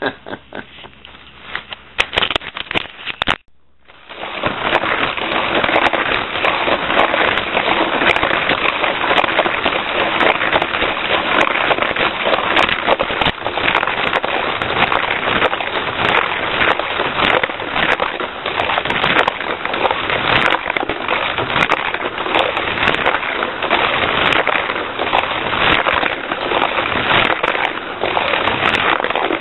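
Cars 2 Charge Ups toy race car (a Sizzlers-type battery car) running laps on a plastic Fat Track: a loud, steady rattling clatter of dense clicks that starts suddenly about four seconds in.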